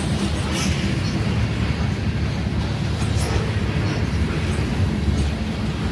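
Grain freight train rolling slowly past: a steady low rumble with a faint engine-like hum underneath and a few brief high clicks.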